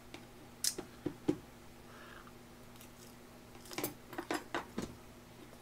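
Chopsticks clicking and scraping against an electric grill pan while picking up leftover food: a few sharp clicks in the first second and a half, then another run of soft clicks around four seconds in, over a low steady hum.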